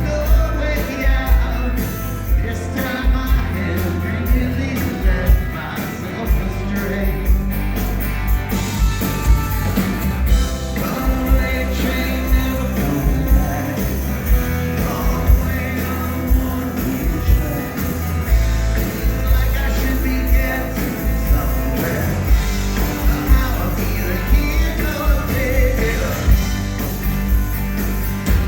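Rock band playing live with a lead singer, drums and guitars, with a steady drum beat under the vocals.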